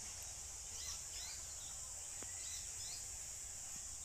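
Countryside ambience: a steady high-pitched insect drone with several short bird chirps over it.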